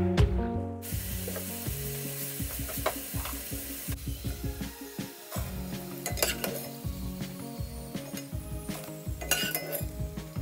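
Potato fries sizzling in hot oil, with the clicks and scrapes of a metal slotted spoon stirring them. Soft background music plays under it.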